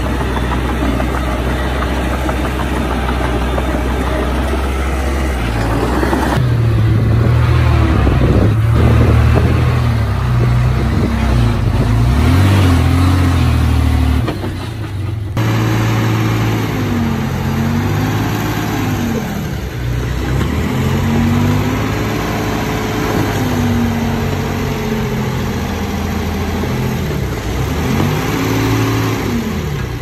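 Heavy diesel engines of earthmoving machinery running. The sound changes abruptly about six and fifteen seconds in, and through the second half the engine note rises and falls again and again.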